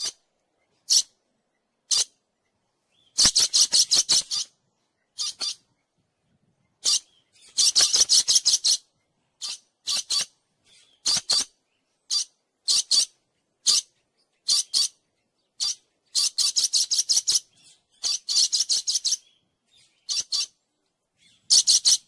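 Parrot giving shrill, high-pitched calls: single sharp notes and quick runs of several in a row, with short silent gaps between.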